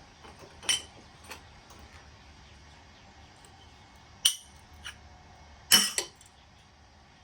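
Scattered sharp metal clinks and knocks from small furnace burner parts and hand tools being handled. The loudest come about four seconds in and as a close pair near six seconds.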